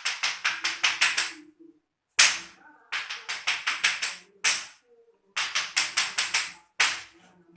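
Runs of sharp hand slaps on a person's body, about five a second, broken by short pauses and a few single harder slaps: slapping therapy given for cough and masuk angin.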